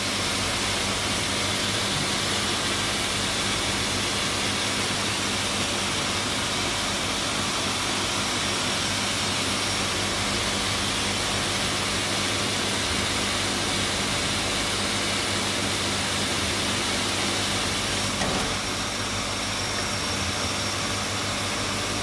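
Water running steadily through a water meter into a 20-litre bottle being filled: an even hiss of flowing water over a steady low hum.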